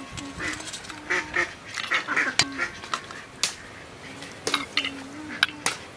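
Steel ladle clinking and scraping against a metal cooking pan and steel plates as curry is served, with a dozen or so sharp clinks. Underneath, a low steady call repeats in short spells.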